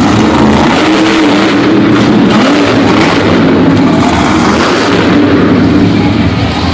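Monster truck engine running loud, its pitch rising and falling as the driver works the throttle.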